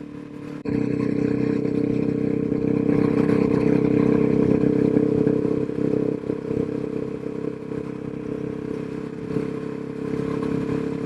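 Suzuki DRZ400SM's single-cylinder four-stroke engine running at a steady cruising speed under way, with road and wind noise; the engine note eases off a little about six seconds in.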